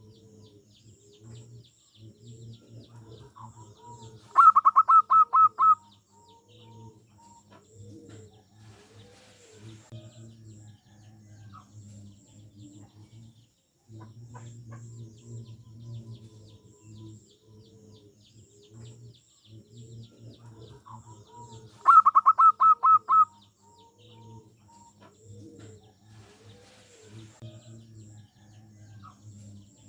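Zebra dove (perkutut) calling: twice, a loud rapid run of about eight short staccato notes lasting just over a second, the second run coming about 17 seconds after the first. Softer, lower calls repeat steadily throughout, with faint high chirping.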